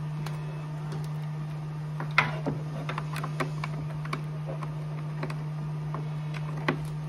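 Small clicks and knocks of plastic parts being handled as the capnostat CO2 sensor cable is unplugged and refitted at a Trilogy Evo ventilator's sensor port, the sharpest about two seconds in and another near the end, over a steady low hum.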